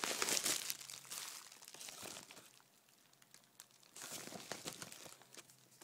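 Packaging crinkling and rustling as a mailed package is opened and its contents pulled out by hand: a long bout of crackling, a pause, then a shorter bout about four seconds in.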